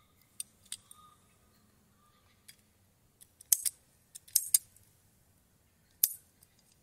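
Ratcheting PEX pipe cutter being squeezed on black PEX pipe: a string of sharp clicks and snaps from the ratchet and blade. They are loudest in clusters about three and a half and four and a half seconds in, with a last sharp snap at about six seconds.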